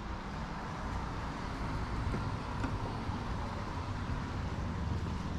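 Steady outdoor background noise: a low, uneven rumble with no distinct events.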